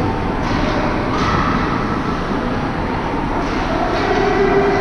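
Steady rumbling din of an indoor ice hockey rink during play, with faint drawn-out tones drifting over it.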